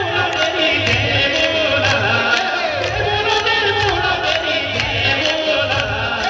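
Live Hindu devotional singing to the Goddess (a Devi bhajan) played through loudspeakers, with a steady percussion beat of about two strikes a second.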